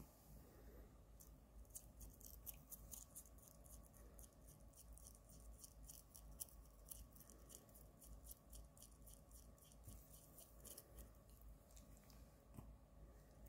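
Toothbrush bristles scrubbing a cat's teeth: faint quick scratchy strokes, several a second, stopping near the end.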